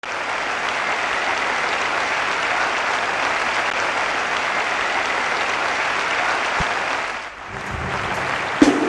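Concert-hall audience applauding steadily; the applause dies away about seven seconds in, and the band's first low notes and a sharp hit come in near the end.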